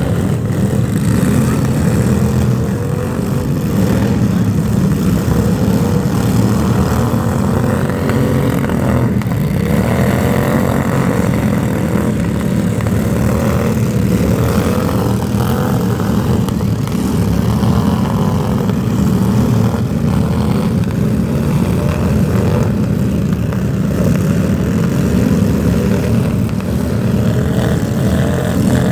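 A loud engine running steadily, its pitch wavering up and down a little.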